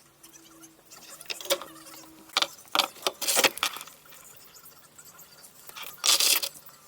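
A run of sharp clicks and rattles from small hard objects being handled, such as tools and plastic parts, followed near the end by a short scraping burst.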